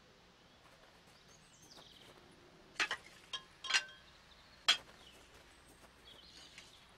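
Quiet outdoor background with faint bird chirps, then four sharp clinks with a brief ringing tone about three to five seconds in.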